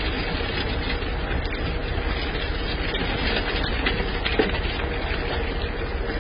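Water and trout gushing out of a fish-stocking truck's flexible discharge hose into the lake: a steady rushing noise with a low steady hum under it.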